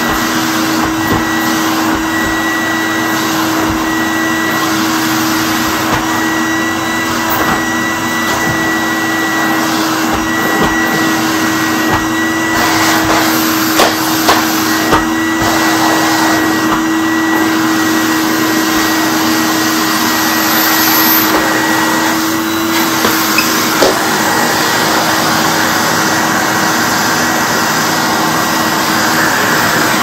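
1991 Numatic Henry HVR200 cylinder vacuum cleaner running steadily, a constant motor hum with a fainter high whine over the rush of air, as its floor tool is pushed over carpet. A few light knocks from the tool come in about halfway through and again later; the 30-year-old motor is running well.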